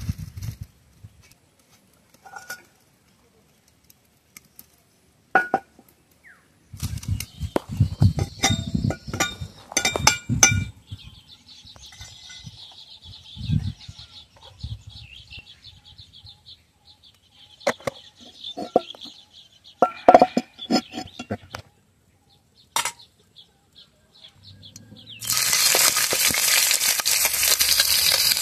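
Scattered knocks and clinks of a wok and bottle being handled, then a few seconds before the end a sudden loud sizzle as prawns go into hot oil in the wok and begin frying.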